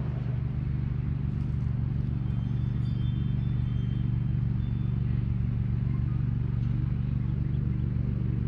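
An engine running steadily at one speed, a deep even drone with no change in pitch.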